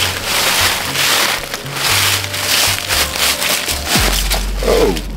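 Footsteps crunching and scuffing through dry fallen leaves, in repeated bursts, over background music with a deep bass line that drops lower about four seconds in.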